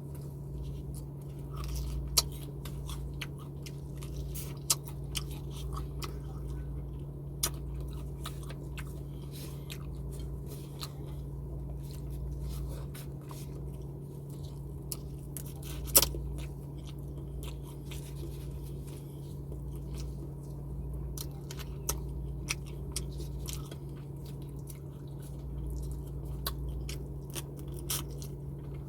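A person chewing and biting food close to the microphone, with many scattered sharp, wet clicks and a few louder ones, over a steady low electrical hum.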